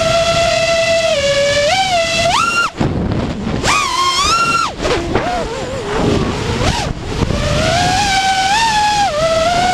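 Four T-Motor F60 Pro II 2700KV brushless motors of an FPV quadcopter whining, the pitch jumping up with each burst of throttle. About 2.7 s in the throttle is chopped and the whine cuts out under a rush of air. It comes back high, then sinks to a low wavering hum before climbing to a steady whine again about 7 s in.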